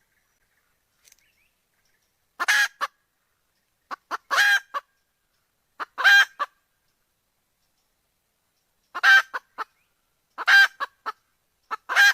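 Junglefowl hen calling the cock: six short call clusters, each a loud main note with a few quick trailing notes, about one and a half to two seconds apart, with a longer pause before the fourth.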